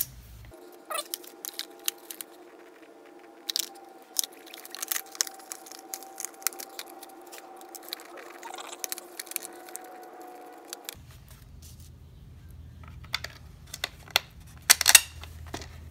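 Small metal screws, washers and nuts clicking and tapping against a hard plastic bracket as they are handled and fitted by hand. The clicks are irregular throughout, with a louder cluster near the end.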